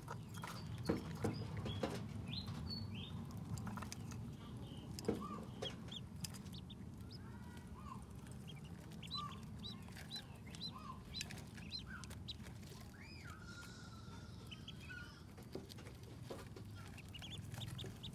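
Ducklings peeping: many short, high peeps scattered throughout, with sharp clicks and taps of bills pecking at a feeding dish, heaviest in the first couple of seconds. A steady low hum runs underneath.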